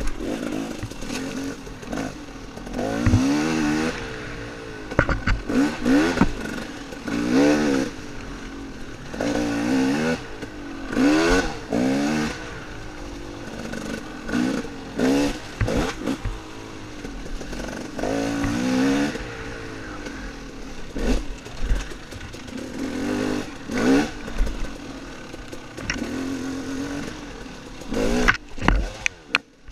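Dirt bike engine revving up and dropping back over and over as it is ridden on a trail, with a few sharp knocks near the end.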